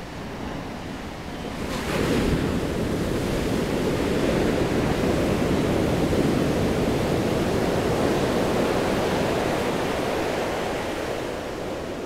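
Ocean shorebreak: a wave breaks about two seconds in with a sudden crash, followed by the long rushing roar of whitewater, which slowly eases near the end.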